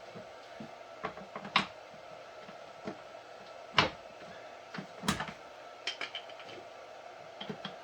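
Scattered clicks and knocks of plastic and metal as office chair casters are pulled out of and pushed into the chair base, the loudest knocks about four and five seconds in.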